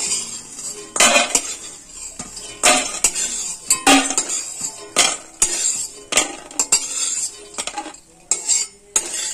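Metal spatula scraping and clanking against a metal kadai while fried bori (sun-dried lentil dumplings) are scooped out of the pan. The strokes come roughly once a second, and the pan rings briefly after several of them.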